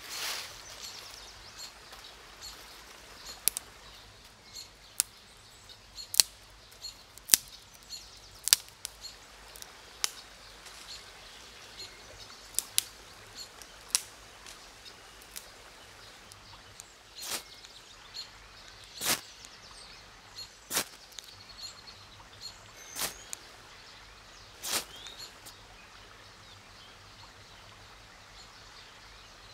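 Dry twigs snapped by hand, a series of sharp cracks every second or two, over the steady hush of a nearby river with some birdsong.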